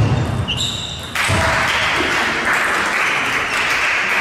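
A sudden loud outburst as a table tennis rally ends, then, about a second in, spectators clapping steadily.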